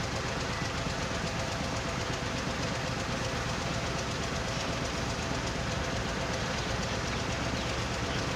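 Heavy machinery running steadily: an excavator's engine together with a stone-and-sand screening machine, a dense, unbroken mechanical noise.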